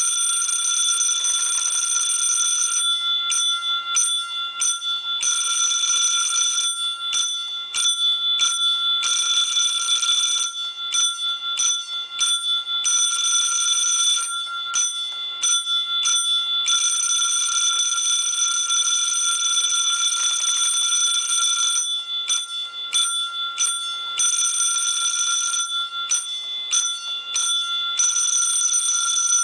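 Electric fire alarm bell of a 1957 school fire alarm system ringing loudly. The steady ring breaks every few seconds into a quick run of three or four short stops and starts, then rings steadily again.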